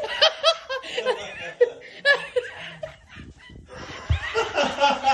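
People laughing in quick, repeated bursts of chuckles, the laughter growing fuller in the last second or so.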